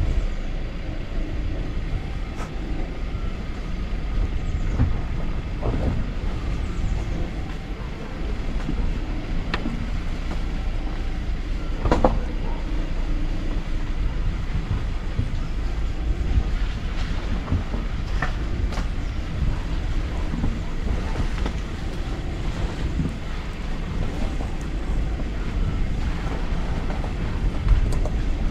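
Opel Astra's 1.6 petrol engine running at low revs as the car creeps down a steep, leaf-covered dirt track, with wind buffeting the microphone. A few sharp clicks stand out, the loudest about halfway through.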